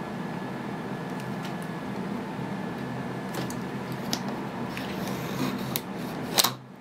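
Plastic screen-protector film and a steel ruler being handled and pressed down by hand: light scattered clicks and rustles over a steady background hum, with a sharp click near the end, after which the sound drops off suddenly.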